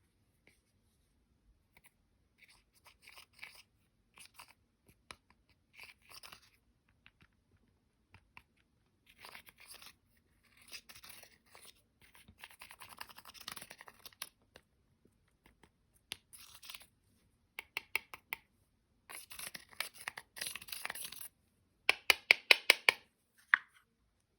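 Slime being worked by hand, pressed and stretched, in bursts of sticky crackling and popping clicks with short pauses between. The loudest is a quick run of pops near the end.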